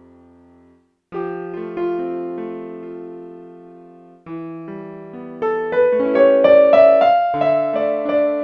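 Solo piano music: a sustained chord struck about a second in and left to fade, another about four seconds in, then a rising run of notes building louder toward the end.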